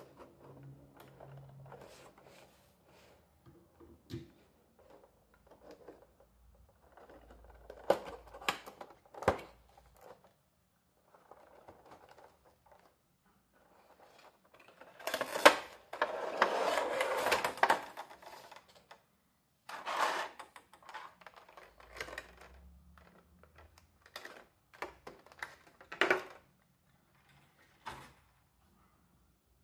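Unboxing a vinyl collectible figure: a cardboard box being cut open and handled, with scattered clicks and scrapes of cardboard. About halfway through comes a louder rustle of a few seconds as the clear plastic insert is slid out of the box.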